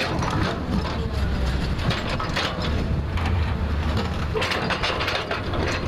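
JCB 3DX backhoe loader's diesel engine running steadily, with irregular clanks and scraping as the bucket works soil and rock.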